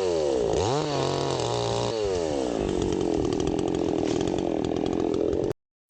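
Two-stroke petrol chainsaw engine revved up and down several times, then falling back and held at a steady, rougher pitch for the last few seconds before cutting off abruptly near the end.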